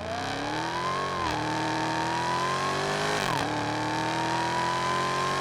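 Car engine accelerating hard through the gears. Its pitch climbs steadily and drops sharply at two upshifts, about a second in and again about three seconds in.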